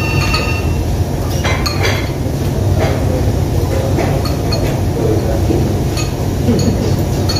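Spoons and bowls clinking in short, scattered clicks as diners eat noodle soup, over a steady low hum of room noise.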